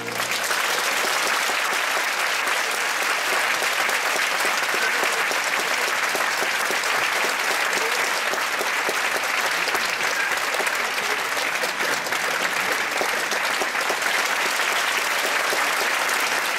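Audience applauding in a concert hall: dense, steady clapping that starts as the choir's final chord cuts off.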